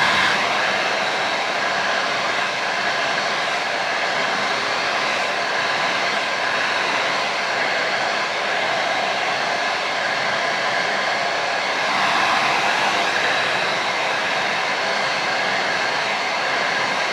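Handheld hair blow dryer running steadily on high: a constant rush of air with a faint, steady motor whine.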